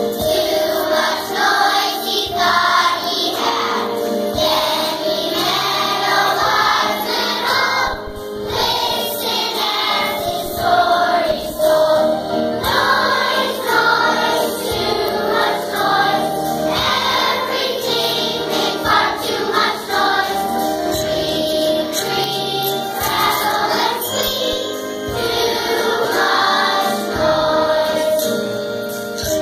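Second-grade children's choir singing a song.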